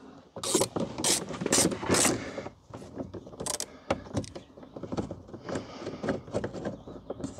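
Ratchet clicking in strokes as screws holding the door glass to the window regulator are undone inside a car door, with small metal rattles: four sharp clicks in the first two seconds, then lighter, quicker clicking.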